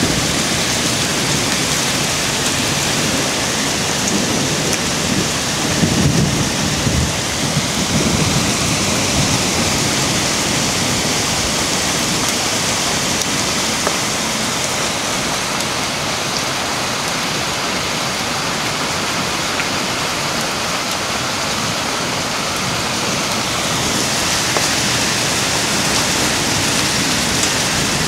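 Hail falling heavily with rain, a steady dense pelting on the ground and surfaces with scattered sharper impacts. A low rumble swells about five to eight seconds in.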